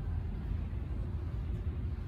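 Steady low rumble of store background noise, with no distinct sounds standing out.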